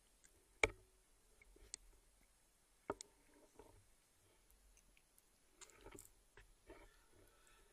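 Near silence broken by a few faint, sharp clicks, the clearest just under a second in and about three seconds in.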